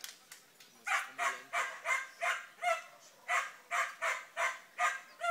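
A dog barking over and over, a steady run of short barks at about three a second, starting about a second in.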